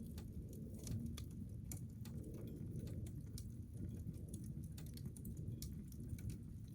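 Titanium wood stove burning with a pot of snow melting on it: faint, irregular crackles and ticks over a low, steady rumble.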